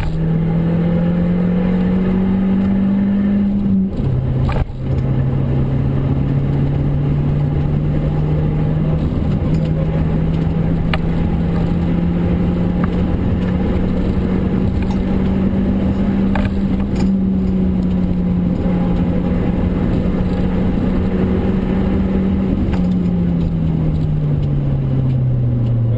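Kia Forte Koup SX's 2.4-litre four-cylinder engine pulling hard, heard from inside the cabin over road and tyre noise. About four seconds in the note drops sharply at an upshift, then climbs slowly as the car gathers speed, and falls away near the end.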